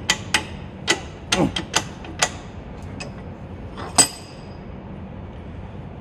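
Sharp metallic clicks and knocks as a freshly assembled motorcycle brake caliper and hand tools are handled at a bench vise while the caliper is taken out of the jaws. There are about eight clinks over the first four seconds, and the loudest, a ringing clink, comes about four seconds in.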